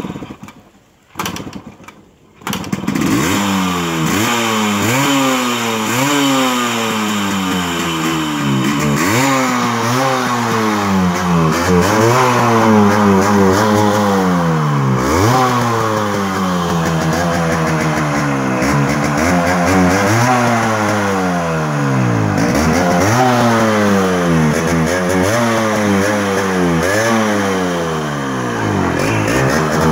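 Yamaha RX100's two-stroke single-cylinder engine on a rusted, stripped-down bike. After two short bursts it catches about two and a half seconds in. It is then revved over and over, its pitch rising and falling every second or two.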